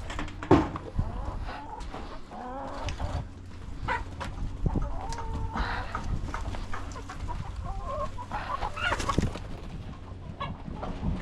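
A flock of chickens clucking, with many short calls overlapping. A few sharp knocks and clicks come through, the loudest about half a second in, over a steady low hum.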